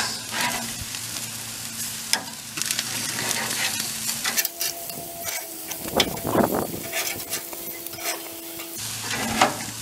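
Chicken sizzling on the hot grates of a gas grill, with metal tongs clicking and scraping against the grates as the pieces are flipped.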